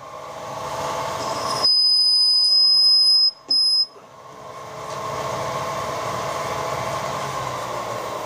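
Countersink in a milling machine spindle cutting into a bronze casting, the machine running with a steady hum. About a second and a half in it gives a loud high-pitched squeal for over a second as it bites into the bronze, then a brief second squeal, before the running goes back to the steady hum.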